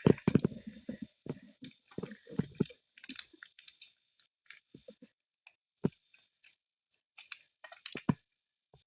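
Fidget toys being handled, giving irregular small clicks and crackles. They come thick in the first three seconds and then thin out, with one sharper click near the middle.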